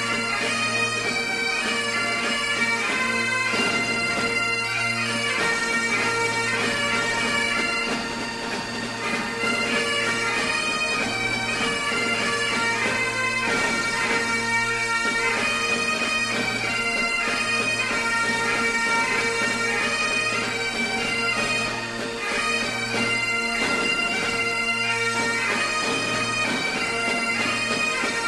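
Instrumental bagpipe music: a steady low drone under a moving melody.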